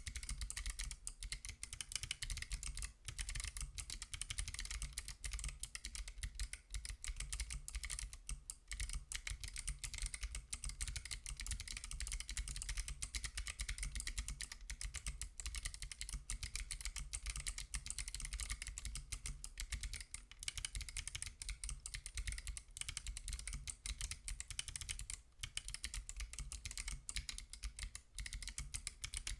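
Continuous fast typing on a Lily58 Pro split keyboard with spring-lubed BOX Crystal Jade clicky switches, an FR4 plate and MT3 keycaps: a dense stream of sharp clicks with a low thud under each keystroke, broken by a few short pauses.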